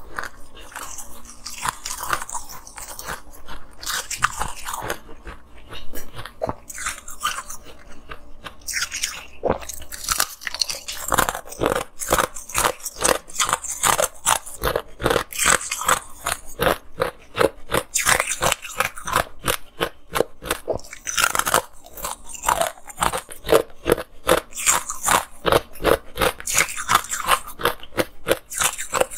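Close-miked biting and chewing of hard frozen purple ice bars: a continuous run of sharp, crackly crunches, several a second, growing denser about ten seconds in.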